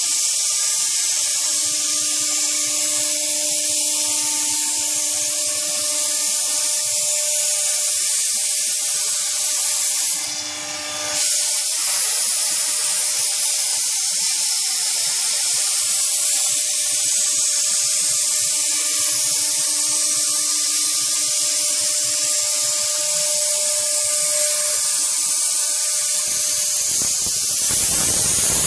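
CNC router spindle running with a steady whine of several tones over a strong hiss as its bit cuts through pink foam board. The sound drops out briefly about ten seconds in, and near the end the hiss grows fuller and lower.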